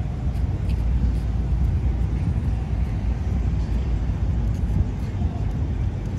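City street ambience: a steady low rumble of passing traffic.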